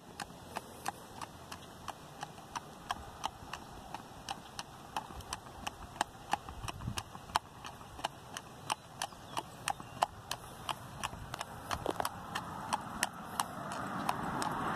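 A horse's hooves striking an asphalt road in an even clip-clop, about three strikes a second, growing louder as the horse comes closer. A rising rush of road noise builds near the end.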